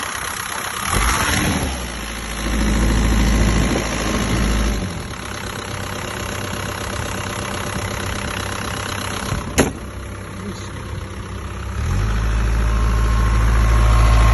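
Caterpillar 305 mini excavator's diesel engine running, getting louder and deeper twice, from about a second in and again near the end, as the machine is worked. A single sharp knock about nine and a half seconds in.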